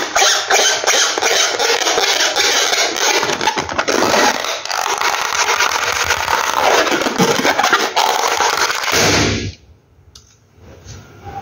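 Hands rubbing and squeezing an inflated latex balloon: a dense run of squeaks and scratchy rubbing that stops abruptly about nine seconds in.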